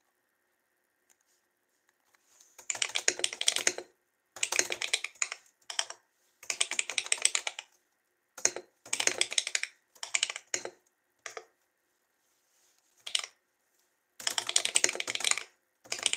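Computer keyboard being typed on in quick bursts of keystrokes, separated by short pauses; the typing starts about two and a half seconds in.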